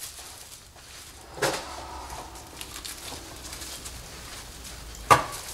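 Plastic bag wrapped around a motorcycle fuel tank rustling and crinkling as it is handled, with a sharp knock about five seconds in.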